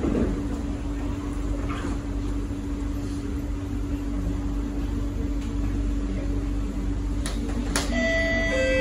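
Singapore MRT train running between stations, heard inside the carriage: a steady hum over a low rumble. Two sharp clicks come near the end, followed by an electronic chime that introduces the next-station announcement.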